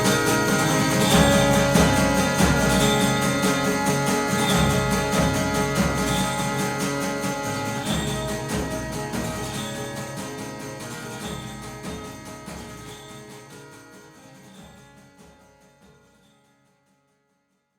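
Instrumental outro of a rock song, guitars and a steady beat without vocals, fading out and ending in silence near the end.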